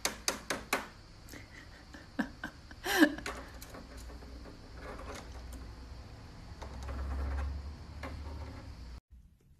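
Cockatiel tapping its beak against the plastic top edge of a TV: a quick run of sharp clicks in the first second, then scattered lighter taps. One louder short sound comes about three seconds in.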